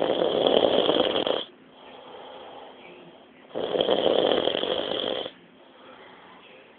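Snoring: two loud snores, each about a second and a half long and about three and a half seconds apart, with a quieter breath between them.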